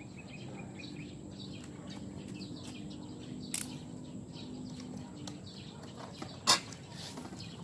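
Birds chirping repeatedly, with a low steady hum underneath. A click sounds about three and a half seconds in, and a louder sharp click near the end.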